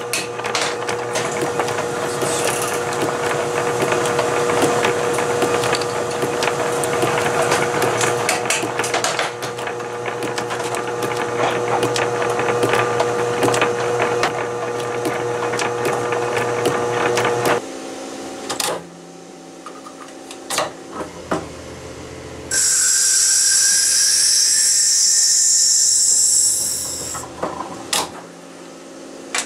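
Workshop machine hum, typical of a small bench lathe's motor, with many small scratches and clicks as a fountain-pen barrel is worked by hand. About two-thirds of the way in the hum cuts off; after a few knocks a loud high hiss runs for about four seconds.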